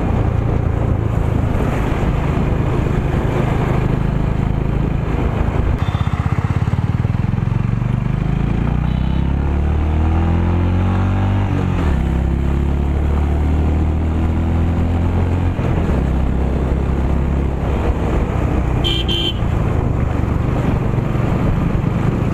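Honda H'ness CB350's single-cylinder engine pulling hard on the move, rising in pitch through a gear and then dropping suddenly at gear changes about halfway and again later. A short horn beep is heard near the end.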